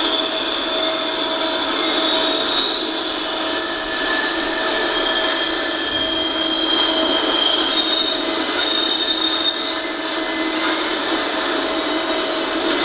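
Double-stack intermodal container train rolling past, its steel wheels squealing on the rail. Thin high-pitched squeal tones shift and come and go over a steady rolling noise.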